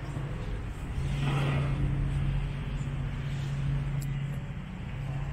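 A motor vehicle engine running with a steady low hum, with a brief swell of noise about a second in.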